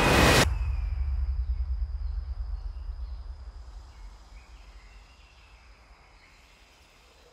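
A loud din cuts off abruptly about half a second in. It leaves a deep rumble that fades away over several seconds beneath faint woodland ambience of bird chirps and a thin steady insect tone.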